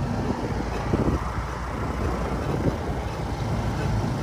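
Small cargo truck's engine running as it drives off along a dirt lane: a steady low rumble.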